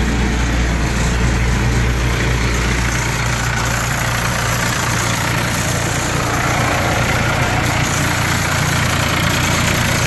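Allis-Chalmers 190 XT Series III tractor's turbocharged six-cylinder diesel idling steadily.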